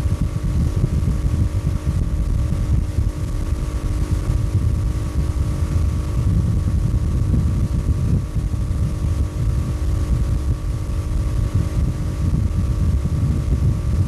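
1976 Chrysler 75 hp two-stroke outboard motor running steadily under load as it tows a water skier, with wind buffeting the microphone.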